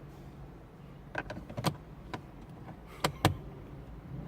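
About five short, sharp clicks and knocks, irregularly spaced, from plastic dash trim and tools being handled as the interior panels are fitted and screwed back on.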